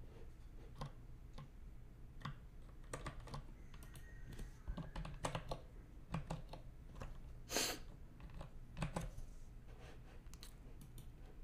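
Typing on a computer keyboard: irregular keystrokes with pauses between them, one click about two-thirds of the way through louder than the rest, over a low steady hum.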